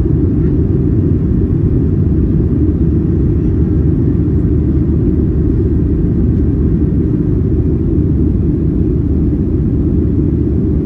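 Boeing 737-700's CFM56-7B jet engines and rushing airflow heard inside the cabin as the airliner climbs after takeoff: a loud, deep, steady noise with no changes.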